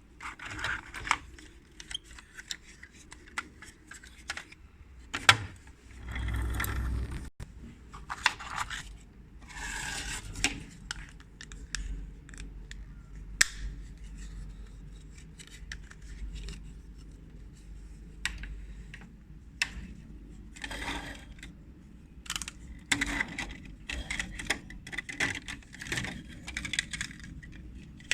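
Toy construction vehicles being put together by hand: scattered clicks and knocks of small parts, with short spells of rubbing and rustling and a denser run of clicking near the end.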